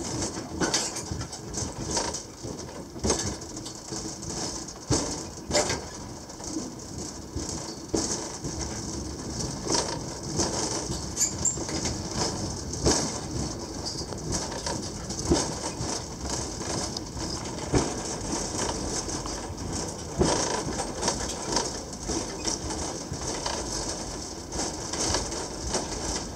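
Gelmerbahn funicular car running down its steep track: steady running noise with irregular knocks and creaks as the car shakes on the rails.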